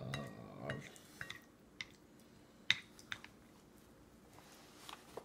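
Scattered light clicks and taps of a plastic baby spoon and small fingers against a metal bowl: a handful of sharp ticks a second or so apart, the loudest about two and a half seconds in.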